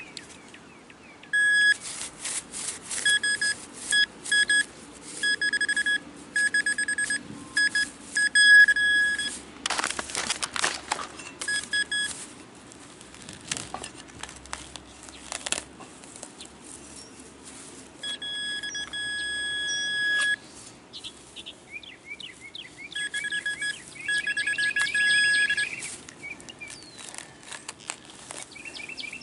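Metal detector giving a steady high-pitched target tone over and over as it is swept across a buried key, with scraping and chopping noises of digging in between. Later come fast pulsing chirps as the target is pinpointed.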